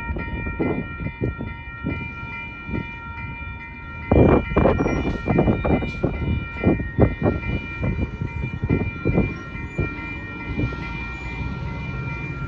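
Railroad grade-crossing warning bells ringing steadily as the crossing gates come down, over a low rumble. A run of sharp knocks is loudest from about four to eight seconds in.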